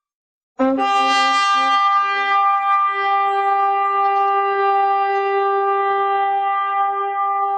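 A loud, steady horn-like blast on one held pitch, rich in overtones, starting suddenly after a moment of silence. Lower notes sound in short broken pulses beneath it for the first two seconds or so.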